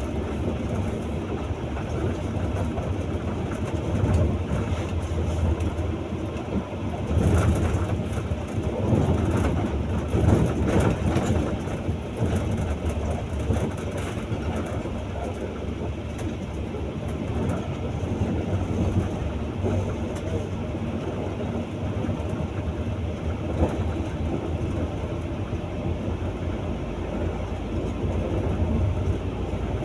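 Steady low rumble of a bus on the move, heard from inside the cabin: engine and road noise. It gets louder and rougher for a few seconds about seven seconds in.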